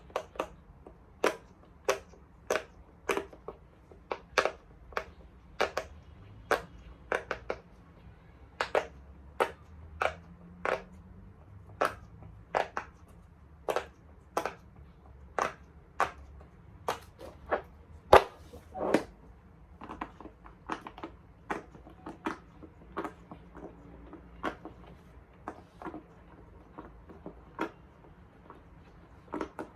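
Bubbles of a big silicone pop-it fidget toy being pressed one after another, each giving a sharp pop, about one and a half pops a second. After about twenty seconds the pops come softer and closer together.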